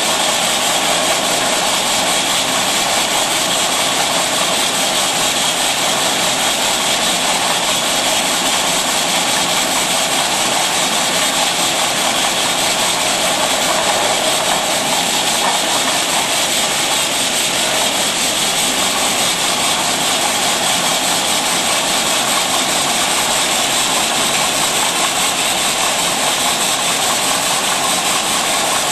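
Rotary bottle filling and capping machine running steadily: a continuous, even whir and hiss with no distinct beat.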